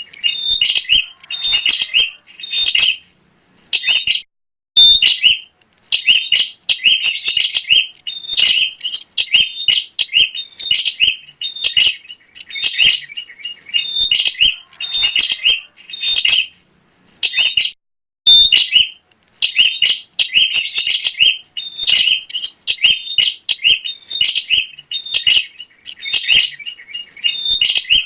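Prinia (prenjak) singing vigorously: rapid, high, sharp chirping phrases that follow each other almost without pause, with only a few short breaks.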